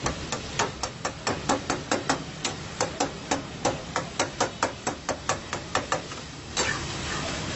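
Metal spatula clanking against a steel karahi in a quick, even rhythm of about three strikes a second while chicken karahi with tomatoes is stirred over high heat. Near the end the clanking stops and a loud sizzle rises from the pan.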